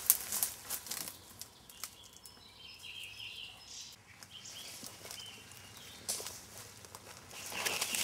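Footsteps brushing and crunching through forest undergrowth and leaf litter, strongest at the start and again near the end. In the quieter middle, a bird chirps a few times.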